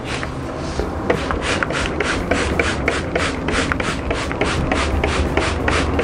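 Hand trigger spray bottle pumped over and over, about four sprays a second, misting liquid onto bare orchid roots.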